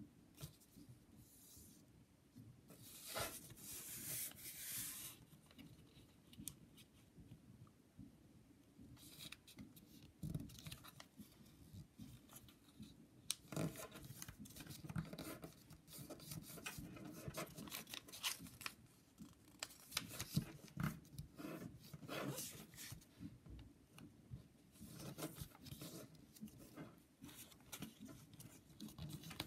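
Faint, intermittent rustling and crinkling of origami paper being folded and creased by hand, with soft scrapes of the paper sliding on a wooden tabletop and small taps as fingers press the folds flat.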